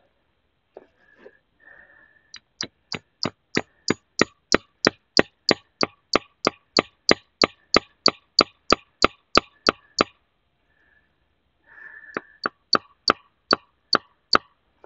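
A hammer tapping a spile into a drilled maple taphole: a long run of sharp, even strikes at about three a second, a pause, then a shorter run of about six strikes. The strikes are bouncing off, as the tap is driven home.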